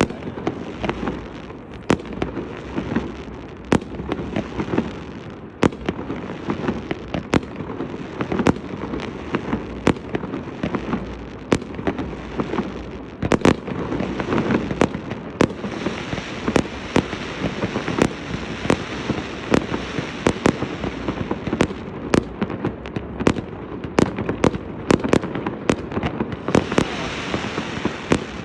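Fireworks display: shells bursting in a steady run of sharp bangs, irregularly spaced at about one or two a second, over a continuous crackling haze.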